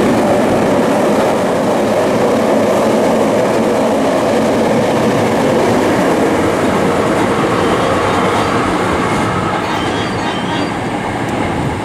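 Hankyu electric train running through the station at speed without stopping: a loud, steady rumble of wheels on rails that eases slightly near the end.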